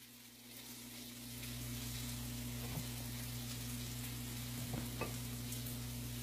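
A frying pan sizzling faintly and steadily, over a low hum. A few soft taps come as avocado slices are set into a glass bowl.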